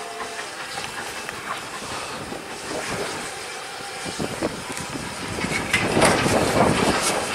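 GNR N2 steam tank locomotive approaching with its train, steam exhaust and wheel noise on the rails growing louder, loudest near the end. The tail of its whistle stops just after the start.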